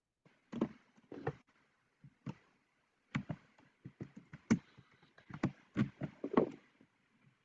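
A run of irregular knocks and taps, about eight sharp strikes spaced a half-second to a second apart.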